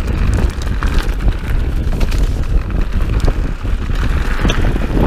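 Wind buffeting the microphone of a handlebar-mounted camera over the steady rumble of mountain bike tyres rolling on a gravel track, with frequent short knocks and rattles as the bike jolts over bumps.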